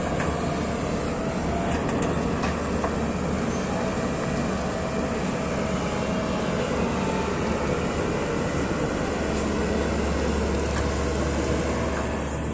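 Heavy excavator's diesel engine running steadily, with a faint high whine that comes and goes.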